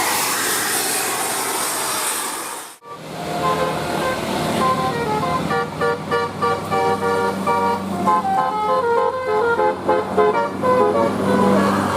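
Indonesian bus telolet horn, a multi-tone air horn, playing a quick melody of short stepped notes over the bus engine running. Before that, for about the first three seconds, a steady noisy rush ends in a sudden cut.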